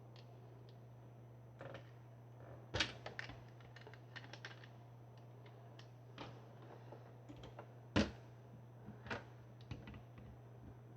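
Scattered light clicks and clacks of plastic Lego bricks being handled, with two louder clacks about three and eight seconds in, over a steady low electrical hum.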